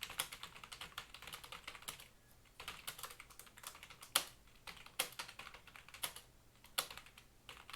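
Typing on a computer keyboard: quick, uneven runs of key clicks with a few heavier keystrokes and a brief pause about two seconds in.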